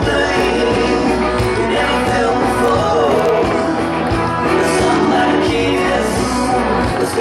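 Country song playing with a steady beat.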